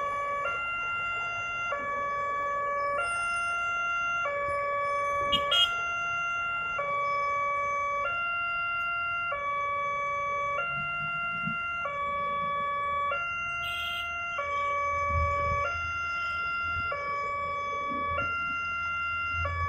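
Railway level-crossing warning alarm sounding from the signal post's loudspeaker: an electronic two-tone chime, high and low notes alternating about every half second, the signal that a train is approaching and the barriers are down. A short click sounds about five seconds in.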